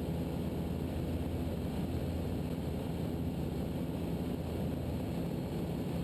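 Ikarus C42 microlight's engine and propeller droning steadily in cruise, heard muffled through the headset intercom with a constant hiss.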